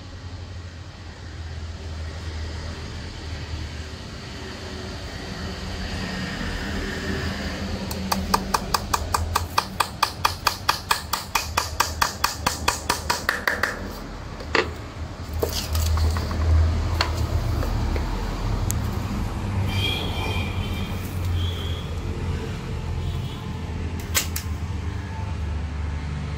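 Hammer driving a nail into a wooden board: a quick run of even taps, about four or five a second, then a few single knocks. A steady low rumble lies underneath.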